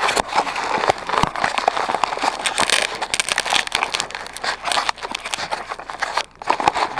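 Snow crunching and crackling under boots shifting right beside the microphone, a dense run of sharp crackles and clicks.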